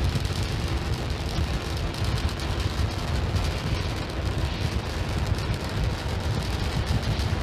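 Starship SN8's three Raptor rocket engines during ascent: a steady low rumble with a rough, noisy edge.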